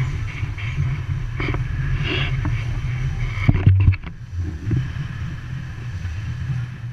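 Wind buffeting the microphone on the deck of a heeled sailboat in 18–22 knot wind, over the rush and splash of water along the hull. A few louder surges of spray come through, the loudest about three and a half seconds in, and things ease slightly after it.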